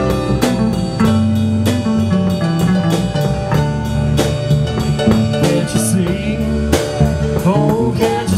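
Live blues-rock band playing through a PA: electric guitar, bass guitar and drum kit keeping a steady beat of about two strokes a second.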